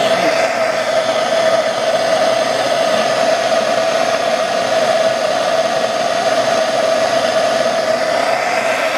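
Hand-held propane torch burning steadily: an even rushing hiss with a constant hum in it, as its flame heats an aluminum joint for brazing.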